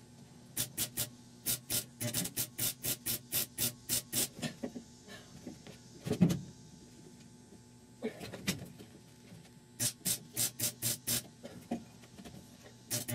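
Welder firing in quick short bursts, about four or five a second, as rust pinholes in thin sheet metal are filled tack by tack; two runs of bursts with a pause between, and a single thump about six seconds in.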